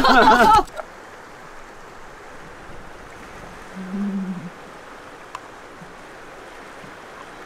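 A voice in the first second, then a steady wash of water on a pebbly shore, with a brief low hum about four seconds in.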